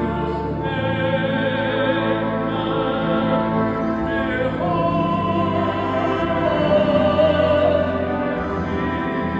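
Live singing of Christmas music with instrumental accompaniment, in a classical, operatic style with vibrato on the held notes; one long note is held from about halfway through.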